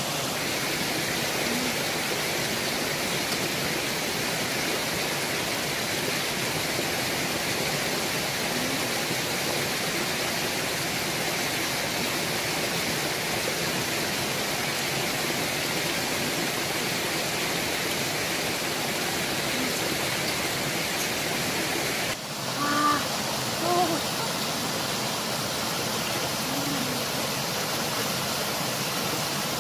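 Steady rushing of a small waterfall cascading over rocks. A couple of short voice sounds come about three-quarters of the way through.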